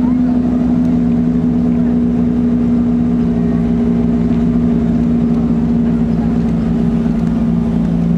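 A loud, steady mechanical drone from a running motor, made of a few fixed low tones.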